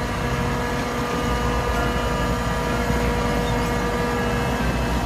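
Diesel engine of a heavy multi-axle dump truck running steadily while its tipper bed is raised to dump a load of soil.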